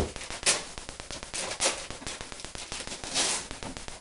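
Gift wrapping paper crinkling and tearing, a steady crackle with a few louder rustles.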